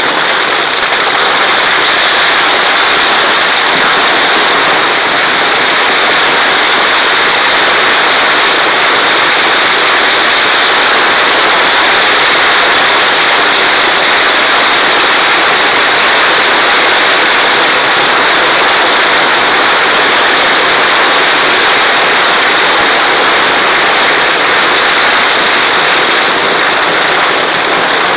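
Ground-level fireworks burning in a dense, unbroken crackle and hiss, loud and steady, with no separate bangs standing out.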